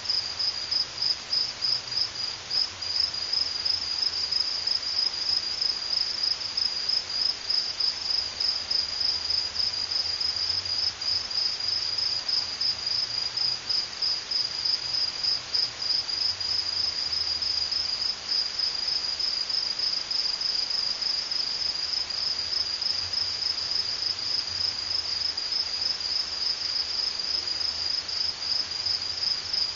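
Crickets chirping steadily in a continuous, rapid, high-pitched pulsing chorus.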